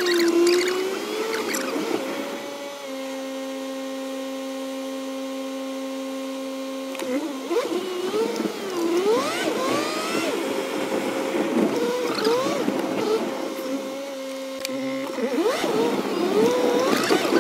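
Car engine and road noise heard from inside the cabin and sped up, so the engine note glides quickly up and down in pitch. From about three to seven seconds in it holds one steady hum.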